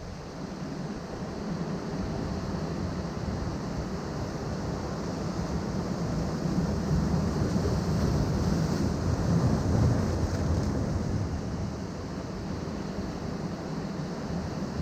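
Atlantic surf washing in among rocks, a steady rushing noise heavy in the low end that swells to its loudest about two-thirds of the way through as a bigger wave comes in.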